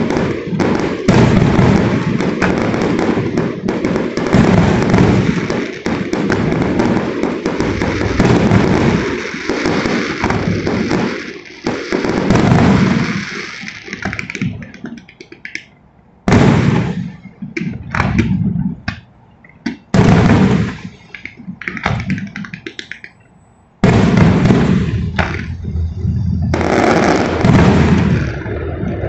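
Fireworks display: a dense barrage of bangs and crackling that thins out about halfway through to a few separate bursts with quiet gaps between them, then starts again as a heavy barrage near the end.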